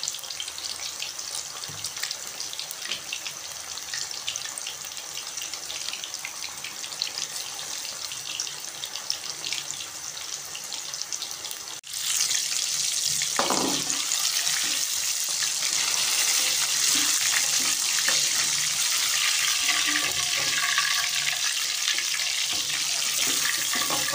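Gram-flour-coated fish slices deep-frying in hot oil in a wok, a steady bubbling sizzle. About halfway through it jumps louder and brighter as the fish browns.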